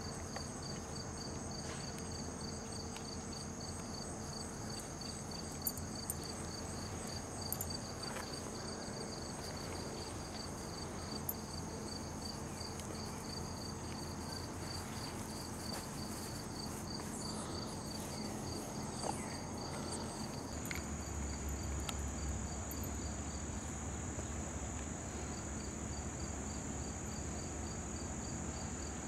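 Crickets chirping in the grass: a steady, rapid, evenly pulsed high chirping that keeps up throughout, over a continuous high trill.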